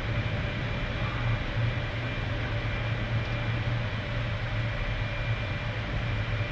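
Steady low machinery hum and hiss inside a submersible's cabin, with a faint thin high tone above it.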